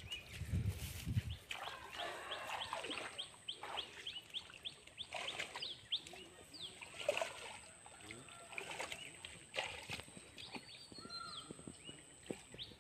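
Small birds chirping over and over in short falling notes, with a steady high insect whine that sets in about two seconds in. Water splashes and sloshes now and then as hands work through the shallow muddy water.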